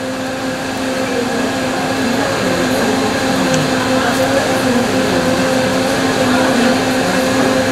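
Steady mechanical hum of indoor restaurant equipment, with a constant low tone running under an even rushing noise.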